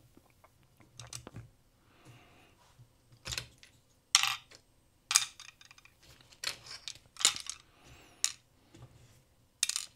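Small plastic and electronic parts from the toy clicking and clattering as they are handled and set down on a small digital scale to be weighed: a series of short, scattered clicks and taps.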